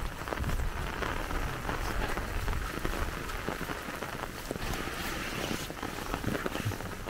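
Steady rain falling on an umbrella held overhead, many small drops ticking on the fabric, with footsteps on wet ground underneath.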